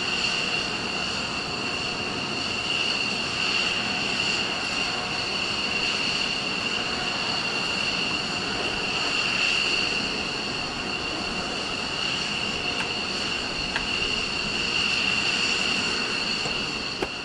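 Jet turbine running steadily with a high-pitched whine over a constant roar.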